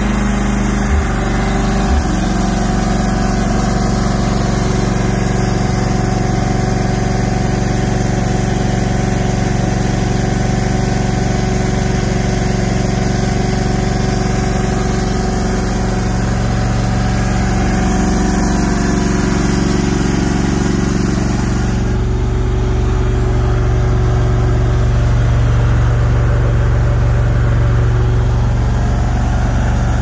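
Briggs & Stratton PP20 20 kW natural-gas standby generator running steadily just after its first start, unloaded at low speed. The tone shifts about twenty seconds in, the hiss dropping and the low hum growing.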